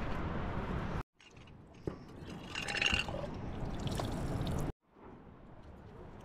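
Water running from the tap of a plastic water tank into a jar, filling it, with a brief gurgle in the middle. Before it, about a second of steady low rushing noise that cuts off abruptly.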